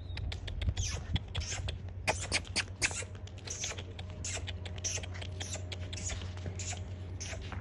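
Pomeranian puppies scrabbling about on artificial turf and against a wire pen: a rapid, irregular scratchy patter over a steady low hum.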